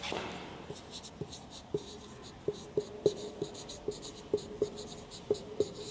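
Marker pen writing on a whiteboard: a string of short, irregular squeaks, one with each stroke of the pen.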